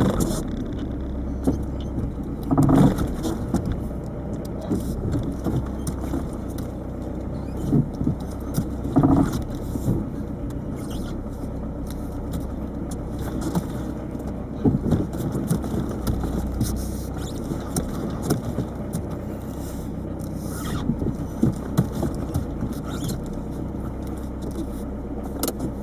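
Inside the cabin of a moving 1998 Peugeot 306 turbo diesel: steady engine and road rumble with constant light rattling, and a few louder clunks at the start, about 3 seconds in and about 9 seconds in. The clunks fit the clunky rattle on acceleration that the owner suspects is a worn lower engine mount bushing.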